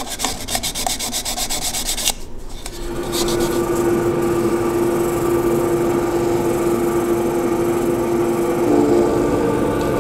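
Sandpaper rubbing against a sapele bowl spinning on a wood lathe, a fast, even scratching. After about three seconds it turns into a steadier, louder sanding sound carrying a held humming tone, which splits into two tones near the end.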